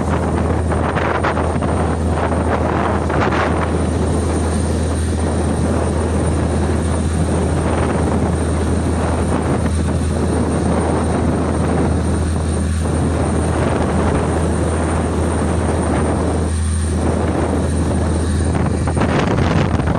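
Boat engine droning steadily, a constant low hum under a dense rushing noise of water and wind.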